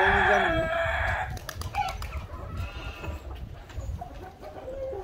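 Rooster crowing: one long call that ends about a second in, followed by softer clucking calls.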